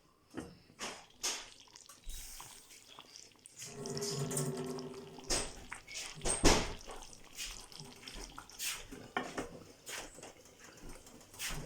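Kitchen clatter of cookware and utensils: a string of clicks and knocks, with the loudest clank about six and a half seconds in.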